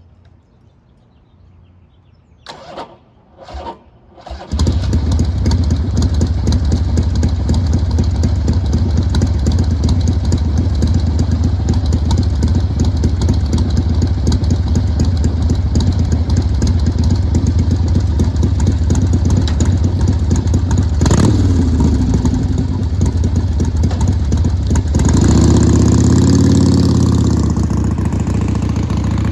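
Motorcycle engine cranked in two short bursts, catching about four seconds in and then running steadily; near the end its note rises and falls as it is revved.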